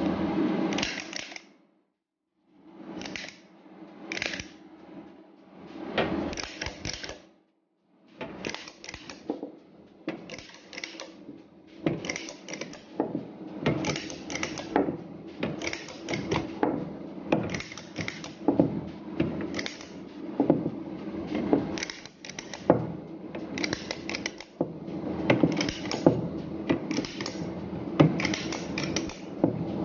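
Hand-operated stainless-steel cookie press being worked: scattered clacks as its parts are handled, then from about eight seconds in a quick, irregular run of clicks as the press is clicked over and over to push dough onto a metal baking tray. A steady low hum sits underneath.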